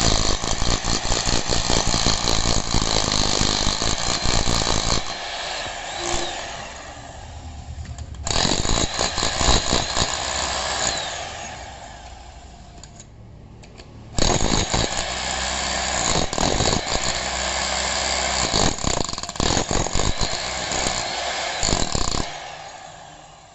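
Foster FDH-0810 electric demolition hammer (6 kg, 1200 W) chiselling into hard concrete, hammering in three runs with short pauses where it winds down, then stopping near the end.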